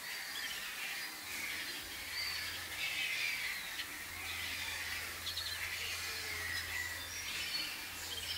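A flock of wading birds calling: many short, high chattering calls overlapping one another, over a steady low hum.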